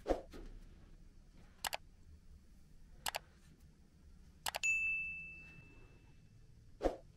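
Subscribe-button sound effect: three quick double mouse clicks about a second and a half apart, then a bell ding ringing for about two seconds. Soft thumps of dishes set down on the cloth-covered floor, one at the start and one near the end.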